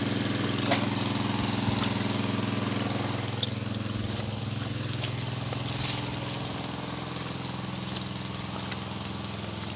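Small engine running steadily at a constant speed, with a few faint ticks and rustles of vegetation scattered over it.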